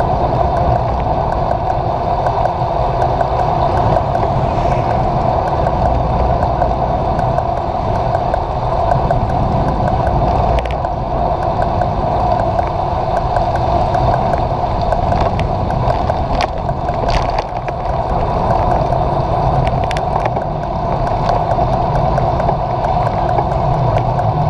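Steady rush of wind and road noise on a bicycle-mounted action camera riding at speed, with a few short clicks in the second half.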